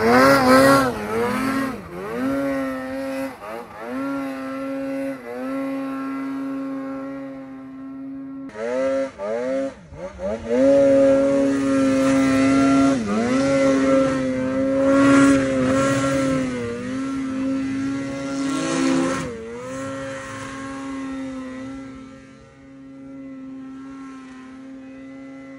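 Snowmobile engine revving hard in deep powder snow, the throttle repeatedly eased and opened so that the pitch dips and climbs back again and again. It grows quieter from about twenty seconds in.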